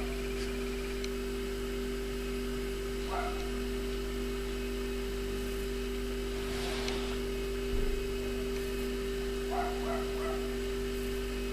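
Steady electrical hum made of two constant tones, with a few faint brief sounds about three, seven and ten seconds in.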